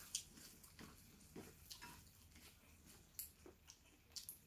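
Near silence with faint chewing and a few scattered small mouth clicks of a person eating chewy marinated baby octopus.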